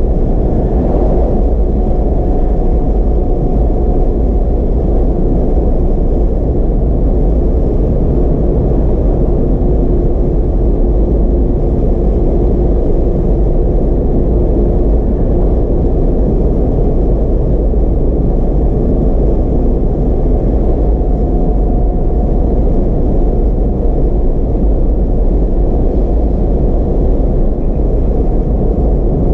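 Steady road and engine noise inside a Mazda MX-5 RF's cabin as it drives along at speed, a low, even rumble. About a second in, an oncoming truck passes with a brief whoosh.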